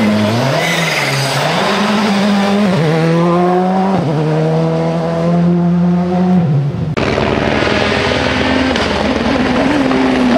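Rally car engines at full throttle on a stage, revving up through the gears with the pitch stepping down at each shift. About four seconds in there is a steady held high engine note, and about seven seconds in it switches abruptly to a different car's lower note, which climbs again near the end.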